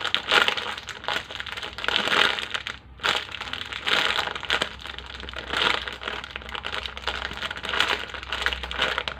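Crinkling, rustling handling noise from a jumbo foam donut squishy toy being squeezed, rising in repeated swells about every two seconds with a brief pause about three seconds in.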